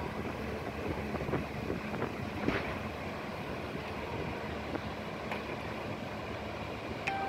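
Steady rushing noise of wind on the microphone and distant surf, with a few faint clicks.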